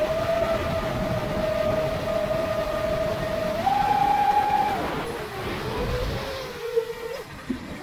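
Motors of a 7-inch FPV quadcopter (Brother Hobby Avenger 2806.5, 1300kv on 6S) whining steadily. The pitch steps up about four seconds in as the throttle rises, then drops back and wavers, dipping briefly near the end.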